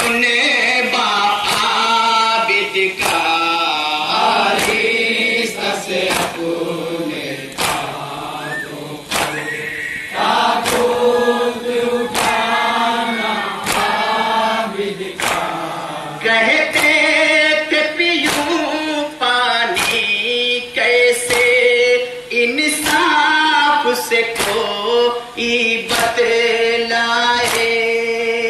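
Men chanting an Urdu nauha (Muharram mourning elegy) together, led by a reciter, over a steady beat of open hands striking chests (matam).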